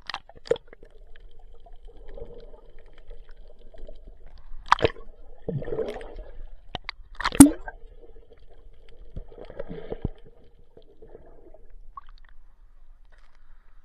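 Waterproof camera being dunked under seawater and lifted back out: muffled underwater gurgling and sloshing with a few sharp splashes against the housing, the loudest about seven and a half seconds in, over a steady low hum heard under the water.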